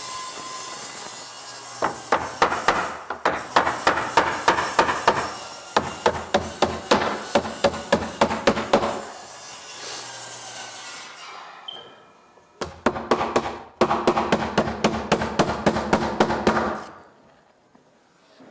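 Hammer driving nails into tongue-and-groove eastern white pine boards. There are two runs of rapid, even blows, about four or five a second: the first lasts about seven seconds, and after a pause of a few seconds the second lasts about four seconds.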